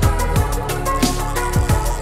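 Background music: an electronic track with a steady beat of deep, pitch-dropping kick drums under sustained synth notes.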